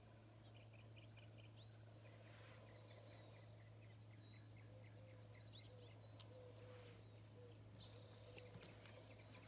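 Faint birdsong: several birds giving short, repeated chirps and a brief trill, over a low steady hum.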